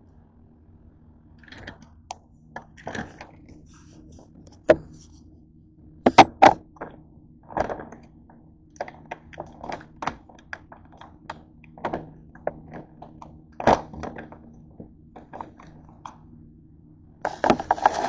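Irregular knocks, taps and clicks of objects being handled and set down on a kitchen counter, close to the microphone, with a denser rustling clatter near the end and a faint steady low hum underneath.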